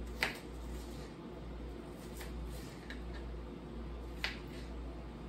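A kitchen knife striking a plastic cutting board a few times, sparse separate taps while chopping onion and green pepper, the loudest near the start and about four seconds in. A steady low hum runs underneath.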